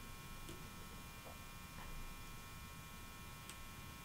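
Faint steady electrical hum in a quiet room, with a few soft ticks from hands and tools at the fly-tying vise.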